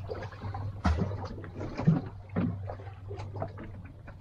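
Fishing boat's engine running steadily with a low hum, with scattered short knocks, the loudest about one and two seconds in.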